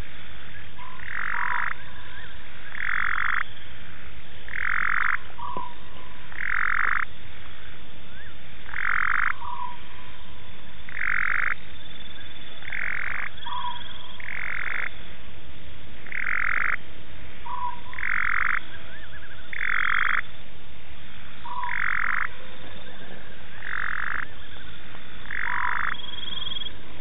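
Frogs calling at night: a short call repeated evenly about every two seconds, with fainter short rising notes between some of them.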